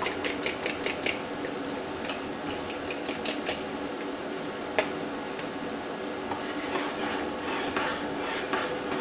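Fork beating eggs in a bowl: fast metal clinking against the bowl for about the first second, then scattered clinks and scrapes of utensils, with one louder clink about five seconds in and busier clinking again near the end.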